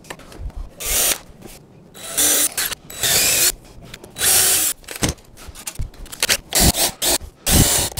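Cordless drill running in four short bursts of about half a second each, followed by a few sharp knocks and clicks.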